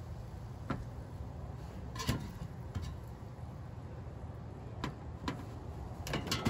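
Kitchen tongs clicking against the air fryer basket and the plate as cooked chicken breasts are lifted out and set down: a handful of short, sharp clicks spread over several seconds, a few bunched near the end, over a low steady background hum.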